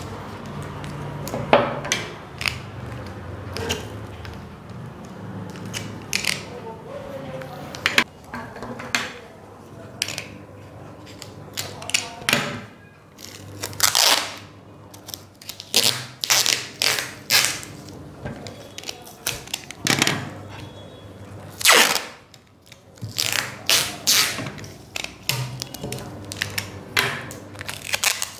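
Adhesive tape being pulled off its roll again and again in short tearing rips, each a fraction of a second, as strips are stuck along a backing poster on aquarium glass.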